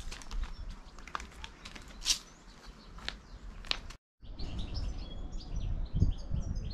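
Small songbirds chirping in the trees, with a few sharp ticks at first; the sound drops out for a moment about four seconds in, then the chirping comes back busier and faster over a low rumble.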